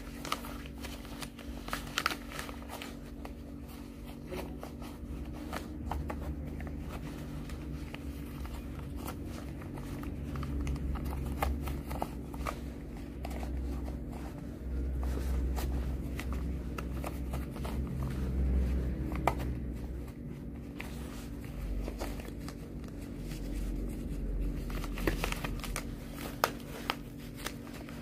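Plastic protective coverall and rubber gloves rustling and crinkling as the gloves are pulled on and adjusted, with many scattered small clicks and swells of low rubbing noise, over a steady low hum.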